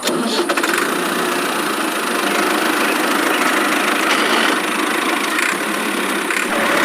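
A small motor running steadily with a rattly, buzzing hum. It starts and stops abruptly.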